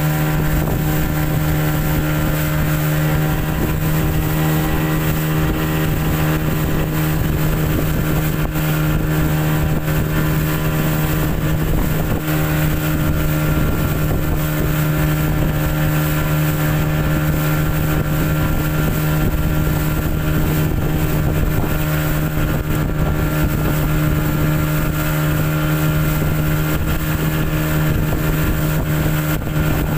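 Small boat's 30-horsepower engine running at a steady, unchanging pitch, with wind rushing over the microphone.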